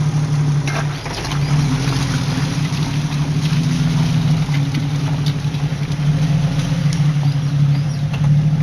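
Off-road vehicle engine running steadily at low revs, with a few faint clicks and knocks over it.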